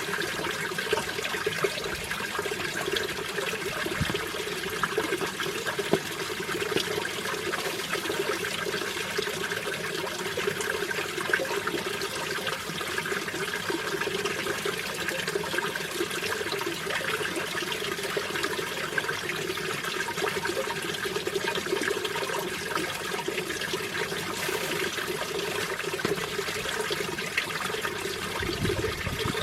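Mountain valley stream running steadily.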